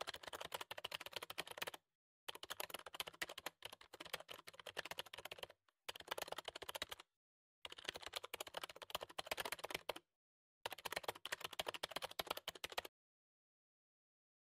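Typing sound effect of rapid keyboard key clicks, in five runs with short pauses between them, stopping about 13 seconds in.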